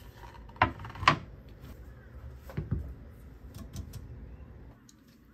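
A wooden cutting board set down on a countertop with two sharp knocks, followed by lighter knocks as a stainless steel bowl of soaking rice is placed on the board.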